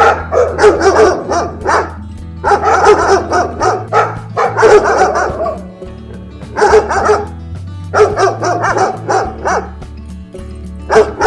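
A dog barking repeatedly in quick runs of several barks, with short pauses between the runs, over steady background music.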